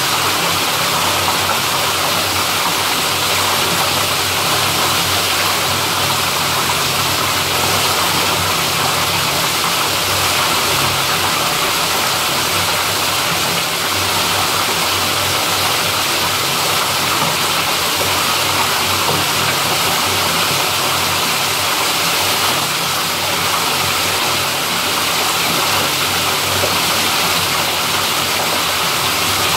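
Water gushing steadily from a pipe into the open channel of a drain inspection chamber, a constant rushing flow.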